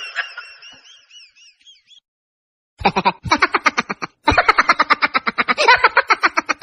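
Edited-in comic sound effects: a warbling, whistle-like tone that fades away, then after a moment of dead silence a fast, evenly pulsing chatter that cuts off suddenly.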